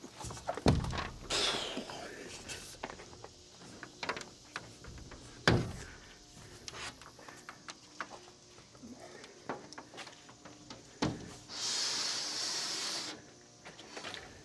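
Handling noises: a few heavy knocks and thumps among lighter clicks and taps, then a hissing scrape lasting about a second and a half near the end.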